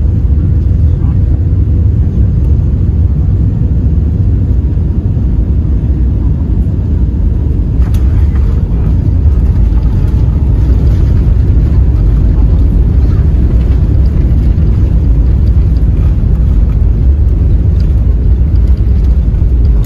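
Airbus jet airliner landing, heard inside the cabin: a steady low rumble on final approach, a short thud about eight seconds in as the wheels touch down, then a slightly louder, rougher rumble as the plane rolls down the runway with its spoilers up.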